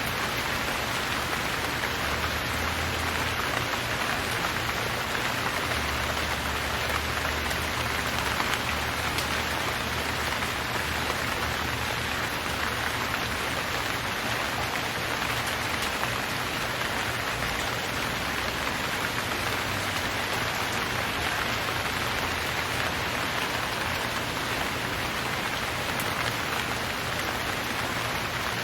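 Steady rain falling on surfaces, an even, unbroken patter of drops, with a faint low rumble underneath now and then.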